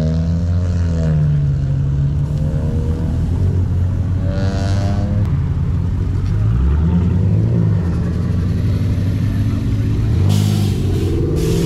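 Several car engines running and revving as cars drive past, their pitches rising and falling. Two short hissing bursts near the end.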